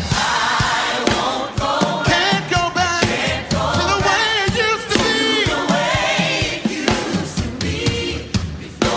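Gospel choir singing with vibrato over a band with a steady drum beat.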